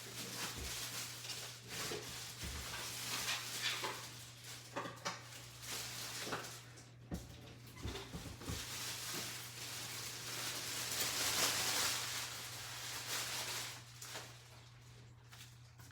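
Cardboard box and plastic packaging being handled and pulled open: rustling and scraping with scattered knocks, loudest about three-quarters of the way through, over a steady low hum.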